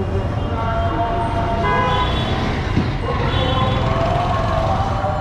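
Busy street traffic with engines running under it and vehicle horns honking over and over: several held honks overlapping, about two seconds in, again near three and a half seconds, and through the last second.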